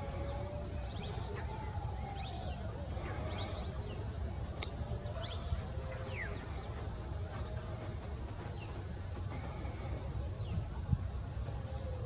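Outdoor bird chorus: small birds chirping with many quick falling notes, plus a few longer wavering calls lower in pitch. A thin, high, steady insect buzz stops and starts several times, over a constant low rumble of wind.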